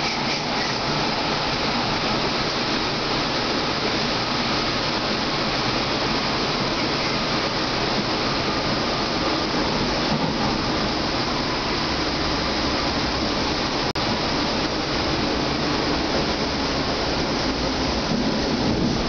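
Munich U-Bahn Type A train heard from inside the passenger car while running: a steady, even rushing noise of wheels on rails and running gear.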